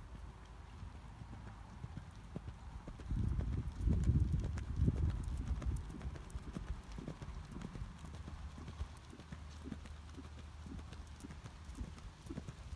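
Hoofbeats of a ridden horse cantering on an arena's sand footing, a steady run of dull thuds that grows louder for a few seconds about three seconds in.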